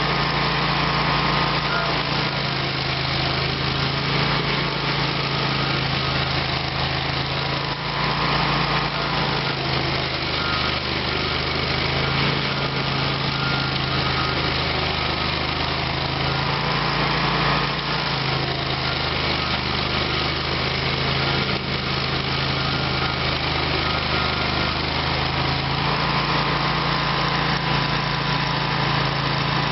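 Stump grinder's engine running steadily, its note shifting slightly every several seconds as it works.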